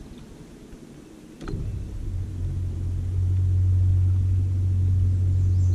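A click about a second and a half in, then a steady low motor drone that swells over the next two seconds and holds.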